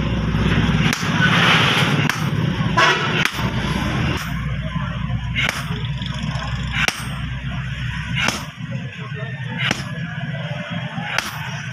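Blacksmith's hammer striking steel on an anvil, sharp blows each with a brief high metallic ring, settling to about one every second and a half. A steady low hum sounds under the first few seconds, then stops.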